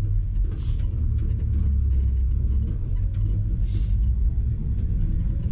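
Steady low rumble of an electric three-wheeler camper on the move, heard inside its cab: road and running noise. Two brief hissing swishes come about half a second in and again near four seconds.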